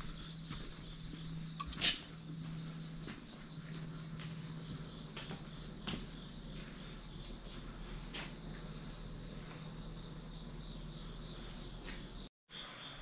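Crickets chirping in a steady high pulsing run, about four chirps a second, thinning to scattered chirps after about seven seconds. A single sharp click, the loudest sound, comes about two seconds in, over a low steady hum.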